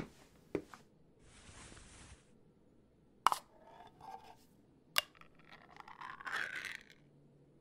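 Foley of a sardine tin being opened: a short rustling hiss, a sharp metallic click about three seconds in with a brief clink after it, a second click near five seconds, then a scraping peel of metal.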